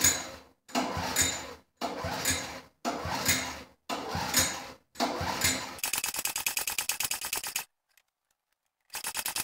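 Honda HS35 snowblower engine being pull-started with the recoil starter: about six pulls roughly a second apart, the engine cranking over without starting, then a couple of seconds of fast, even ticking.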